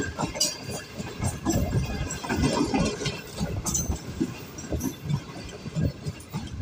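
Green Line Express passenger coaches rolling slowly past, with a low rumble and irregular clicking and clattering from their wheels on the track.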